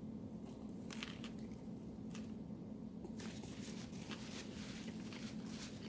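Faint chewing and wet mouth sounds from eating a sandwich, with a few soft clicks, over a steady low hum.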